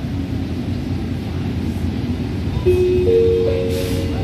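Rubber-tyred metro train running with a steady low rumble heard from inside the car. About two and a half seconds in, a three-note rising chime plays over the on-board speakers, the signal that comes before a station announcement.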